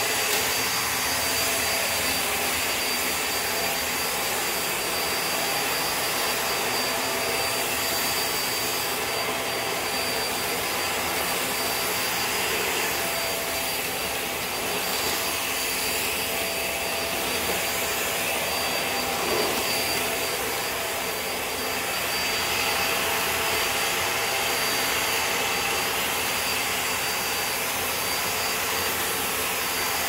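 Hoover React Powered Reach upright vacuum cleaner running steadily as it is pushed over a tile floor: an even suction rush with a thin, steady high whine above it.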